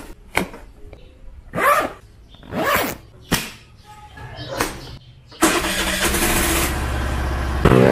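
Several brief, sudden sounds, then about five seconds in a motor scooter's engine is started from its handlebar starter switch and runs with a steady hum.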